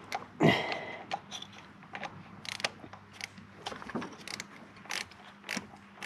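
Ratchet clicking and metal tool clinks, irregular, as a spark plug is wound down into its hole with a socket and extension. One louder knock comes just under half a second in.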